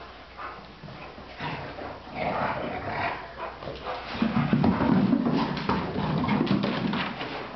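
Dogs whining and scuffling as an adult dog and its puppies greet and play, with paws scrabbling on a wooden floor. It grows louder and busier from about four seconds in, when the dogs come together.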